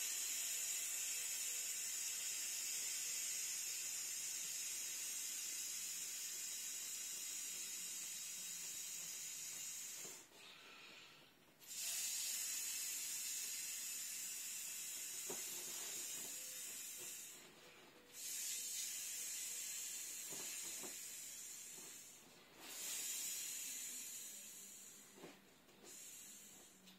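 Mouth-inflating an inflatable tiger pool toy: long steady rushes of breath blown through its valve, the first lasting about ten seconds, broken by four short pauses for breath.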